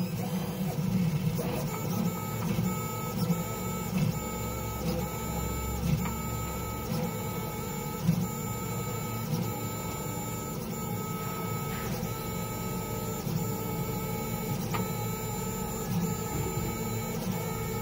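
FDM 3D printer running a print: the stepper motors whine in several steady tones that switch pitch with each move of the print head, marked by a light click about every half second to a second.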